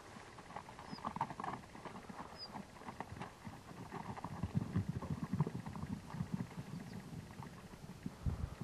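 Faint, irregular hoof steps of wild mustangs walking on packed dirt, with a low rumble, busiest around the middle.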